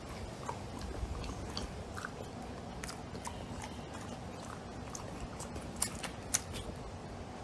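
A bulldog chewing crunchy food, a run of irregular crunches and wet mouth clicks, loudest a little before the end.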